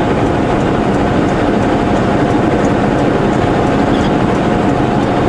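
Semi-truck engine and road noise heard inside the cab while driving, a steady rumble with a thin steady whine over it.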